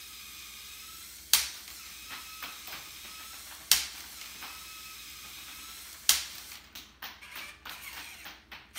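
Hexbug VEX Snapshot ball gun firing three times, about two and a half seconds apart, each shot a sharp snap. A small motor whirs steadily between the shots, and a few lighter clicks follow the last one.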